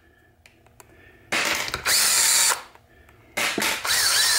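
Power drill spinning a socket extension to run out the side-cover bolts of a Muncie four-speed transmission. It runs twice: first about a second in for about a second, then again near the end.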